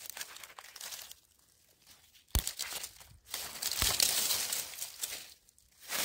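Dry fallen leaves rustling and crunching in uneven bursts, with two sharp clicks, a little over two seconds in and again near four seconds.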